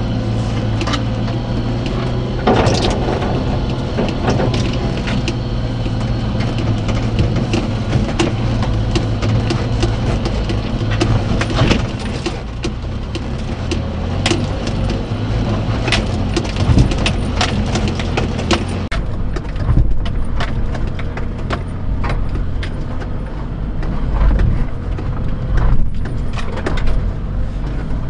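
A Daihatsu Hijet mini-truck's 660cc three-cylinder carbureted engine runs steadily under load, heard from inside the cab as the truck crawls up a steep rocky trail. Frequent short knocks and rattles punctuate it throughout.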